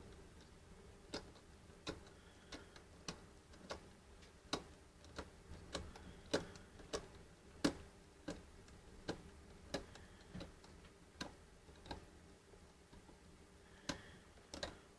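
Combination number wheels of a Master Lock 5401D key safe clicking one detent at a time as they are turned, faint separate clicks about one or two a second with a short pause near the end. Each wheel is being felt for its flat spot to decode the combination.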